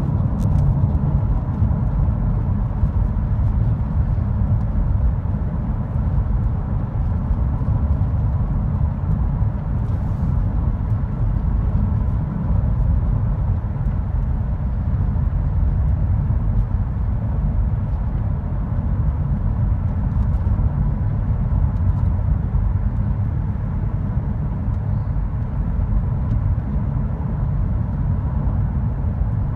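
Steady road and engine noise of a car driving, heard from inside its cabin: an even low hum of tyres and engine that holds constant throughout.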